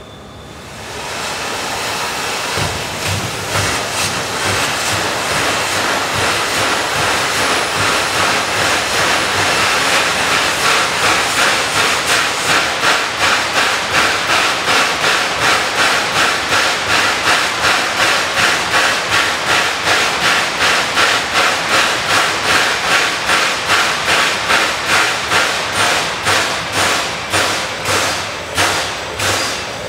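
Stationary C56 steam locomotive working on steam: a hiss starts about a second in and builds into a regular pulsing beat about twice a second, which slows near the end. The pattern is typical of the locomotive's steam-driven air pump charging the brake air.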